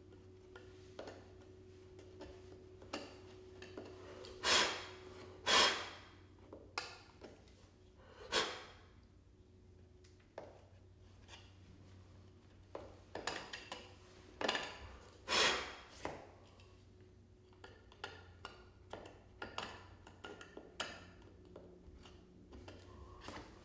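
Utility knife blade scraping excess wood filler off a painted wooden trim corner, in short irregular scratchy strokes, a few much louder than the many faint ones.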